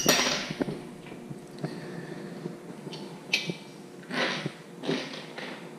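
Hand-assembly of a steel motorcycle carrier: a sharp metallic click at the start, a couple of light clicks about three seconds in, then two brief rustling handling noises as bolts and washers are fitted to the frame.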